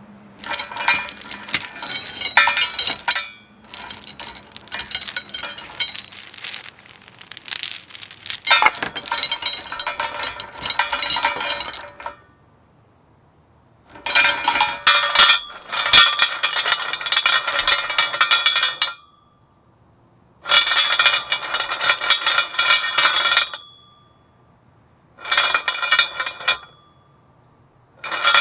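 Metal chains rattling and clinking against each other. The sound comes in runs of several seconds, broken by short pauses of near silence.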